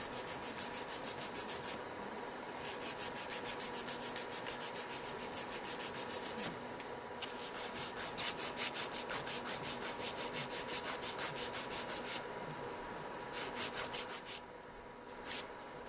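Hand nail file rasping across fingernails in quick back-and-forth strokes, in runs broken by short pauses, over the steady hum of a fan.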